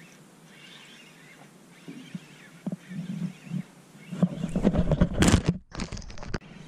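Rubbing and knocking on the action camera as it is handled and moved. This is loud for about two seconds from about four seconds in, with a brief cut-out in the middle. Before that there is only a faint low hum and a few soft knocks.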